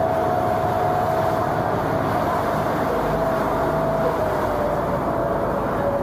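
Passenger boat's engine running under way: a steady drone with a whine that sags slightly in pitch about four seconds in.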